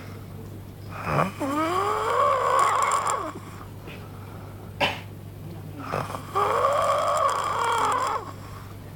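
Snoring of the snoring dinosaur: two long, drawn-out snores about five seconds apart, each with a wavering, bending pitch, with sharp clicks between them.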